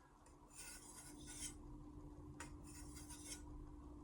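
The edge of a DALSTRONG Shogun X 10-inch chef's knife being drawn across a hard surface to blunt it before sharpening. It makes two slow hissing strokes of about a second each, about two seconds apart, with a sharp click between them.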